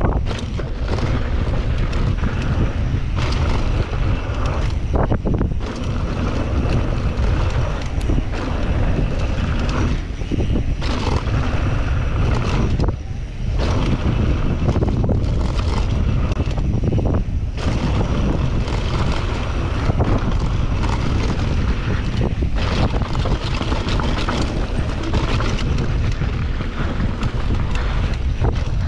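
Steady wind rush on the microphone during a fast mountain-bike descent down a dirt trail, with short knocks and rattles from the bike over bumps.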